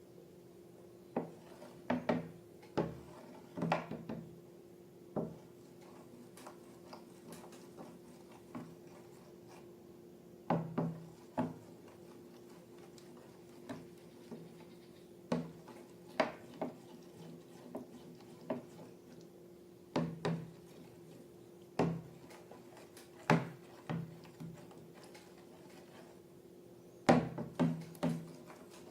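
Irregular sharp taps and clicks, some in quick clusters, from slime-making materials and utensils being handled, over a steady low hum.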